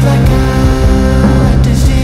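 Background music with sustained low bass notes and held pitched notes.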